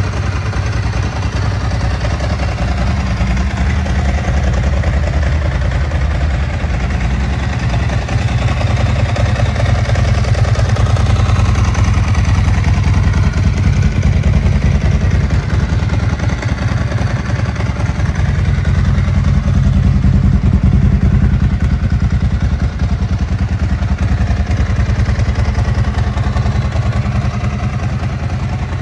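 A 2006 Ducati 749's 90-degree L-twin engine idling steadily, swelling slightly in level a couple of times.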